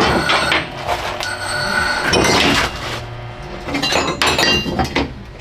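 Hard objects clinking and clattering: a series of sharp knocks, some with a short metallic ring, with a busy cluster about four seconds in.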